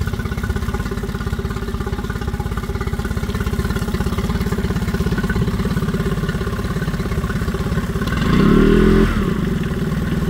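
Yamaha F25 four-stroke two-cylinder outboard motor idling steadily just after its first start of the season. About eight seconds in it is briefly revved, the pitch rising and falling back.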